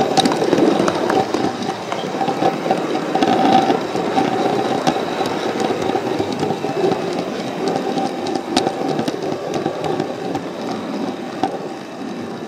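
Model train running along the layout track: a steady rumble of wheels on rail with a steady whine from its small electric motor. Occasional sharp clicks come at rail joints and points.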